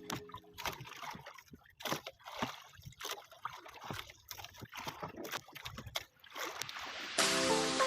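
Water sloshing and splashing irregularly, with small clicks and knocks. Background music comes back in near the end.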